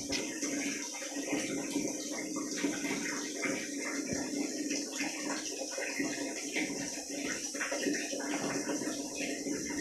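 A steady rushing like running water, with many small, irregular crackles over it as a young otter chews dry food pellets.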